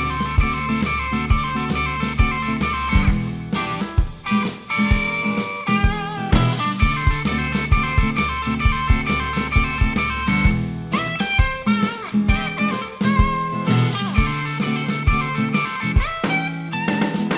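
Instrumental break in a blues-flavoured song: a lead guitar plays bending notes over a steady drum beat.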